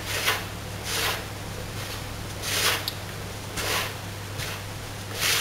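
Fingertips rubbing flour and margarine into breadcrumbs in a mixing bowl: about five dry, irregular rustling scrapes, over a low steady hum.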